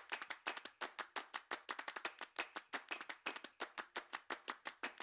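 A quick, irregular run of sharp, light clicks, about eight a second, like sparse clapping, fairly quiet throughout.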